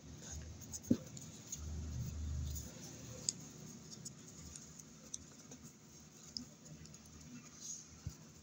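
Paper being folded and creased by hand on a cloth-covered table: soft rustles and small scattered taps, with a sharp knock about a second in and a brief low rumble around two seconds in.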